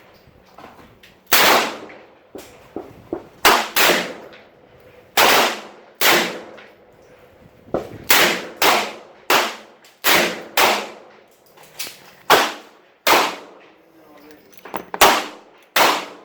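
Smith & Wesson SW22 Victory .22 LR semi-automatic pistol fired shot by shot, about a dozen sharp cracks spaced unevenly from half a second to two seconds apart.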